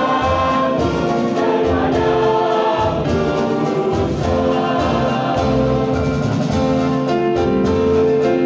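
A mixed school choir of boys and girls singing held notes together, accompanied by two Yamaha electronic keyboards.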